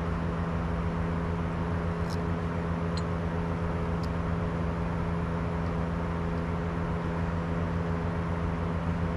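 Steady mechanical hum, a constant low drone that holds one pitch, with a few faint light clicks about two, three and four seconds in.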